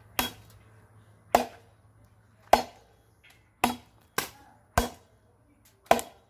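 Machete blows chopping into a wooden log: about seven sharp, separate strikes, roughly one a second at an uneven pace.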